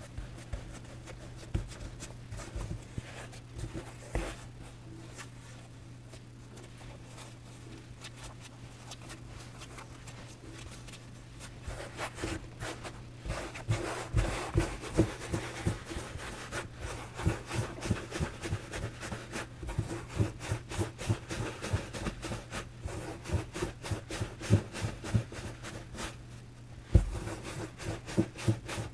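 Hands working baguette dough on a floured silicone mat. A few soft presses and pats come first. From about twelve seconds in, the palms roll the dough out into a long baguette, giving a quick, rhythmic run of soft thuds and rubbing.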